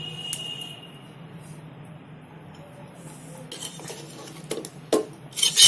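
A steel ladle stirring chicken korma in an aluminium pot, scraping and clinking against the pot's sides. It starts a few seconds in, and the clinks come thicker and louder near the end, over a faint steady hum.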